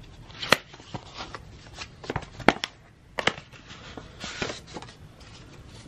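A small paper card and envelope being handled and opened: a series of crisp paper rustles and sharp taps, irregular and short.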